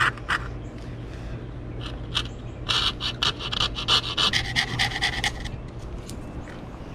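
Hand coping saw cutting a cope into the end of MDF baseboard, the blade rasping in quick back-and-forth strokes, about four a second, with a pause early on and the strokes stopping about five and a half seconds in. The cope is being back-cut slightly, with the blade set to cut on the downstroke.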